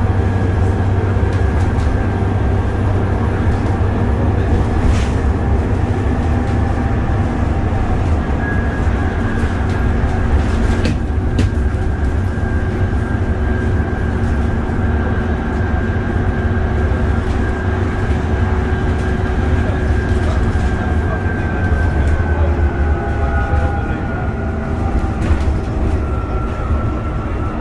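Dennis Trident double-decker bus with a Cummins ISCe engine under way, heard from the lower deck: a steady low engine drone with a high axle whine over it, the whine's pitch easing down a little near the end. Two brief knocks about 5 and 11 seconds in.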